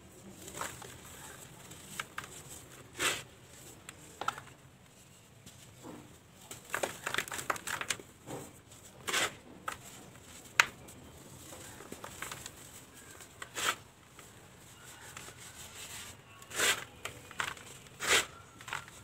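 Dry, dusty cement balls crushed and crumbled by hand, giving irregular gritty crunches and crackles with soft rustling of powder pouring off the fingers; a few sharper crunches come near the end.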